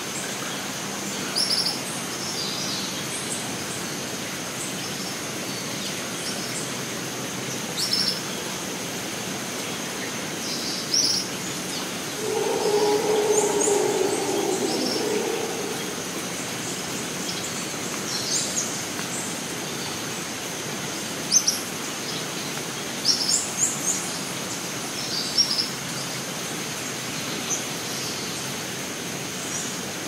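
Rainforest ambience: a steady high insect drone under scattered short bird chirps, with a low, drawn-out sound lasting a few seconds about halfway through.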